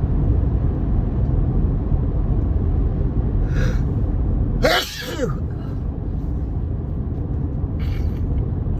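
A man's single loud allergy sneeze just after the halfway point, with a short sharp in-breath a second before it, over a steady low rumble. It comes from hay-fever-type allergy, his nose swollen and blocked from hyacinth pollen.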